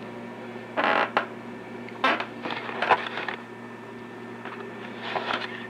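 Steady low electrical hum of a home voice recording, with several short rustles about one to two seconds apart.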